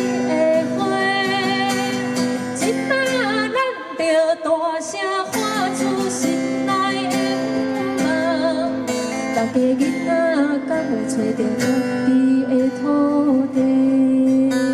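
A woman singing a slow ballad in Taiwanese Hokkien, holding notes with vibrato, accompanied by an acoustic guitar.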